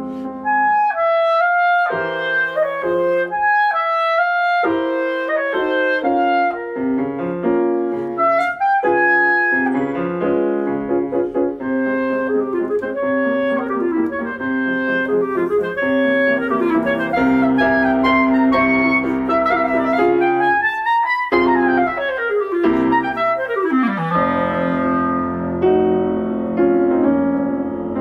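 Clarinet playing a fast classical solo line with piano accompaniment, full of quick runs, with a long falling run about three-quarters of the way through.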